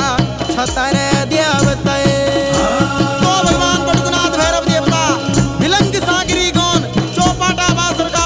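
Garhwali jagar folk song: singing over a fast, steady drum rhythm.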